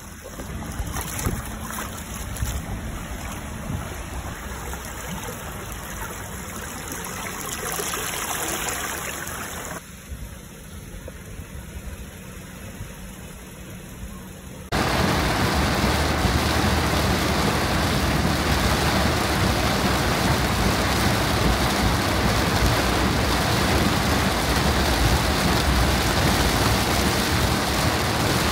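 Floodwater running over pavement and pouring into a street storm drain. About halfway through, a cut to a steady, louder rush of heavy rain pelting a moving car, heard from inside, with the car's road noise underneath.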